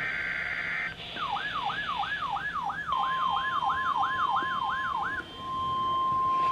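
The last burst of a NOAA Weather Radio SAME alert header, a harsh buzzing data tone lasting about a second. Then a wailing siren-like alert tone sweeps up and down about three times a second for some four seconds. About three seconds in, the steady 1050 Hz NOAA Weather Radio warning alarm tone starts under the sweep and holds on alone once the sweep stops.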